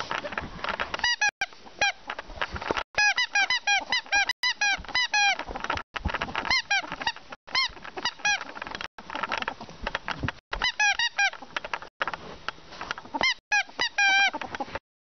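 Ferret dooking: quick runs of short, squeaky clucking calls, several a second, over scrabbling and rustling on the floor as it bounds about in excited play. The sound drops out briefly several times.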